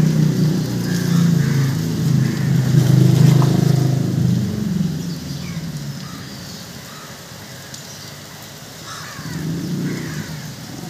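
A motor vehicle's engine running close by, loudest through the first half, fading about five seconds in and swelling again briefly near the end, with crows cawing in the background.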